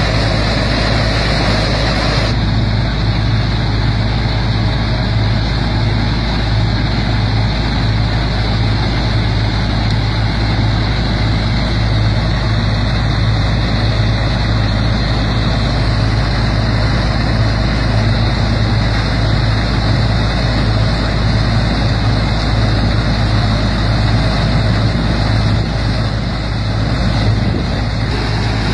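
Punni multi-crop, straw-making combine harvester running as it cuts standing wheat: a loud, steady machine noise with a strong low hum.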